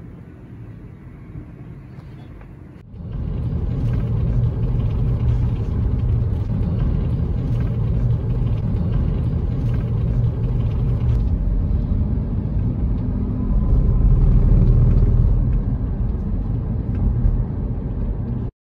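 Faint, steady distant city traffic hum for about three seconds, then an abrupt change to the loud, steady low rumble of a car driving along a city road, heard from inside the car.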